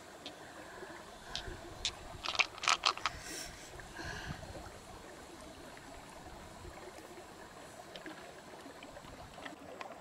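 A quick run of light, sharp clicks, hard coloured pearl beads knocking together as they are handled, about one to three seconds in. A faint steady lapping of water runs underneath, with a few soft ticks later.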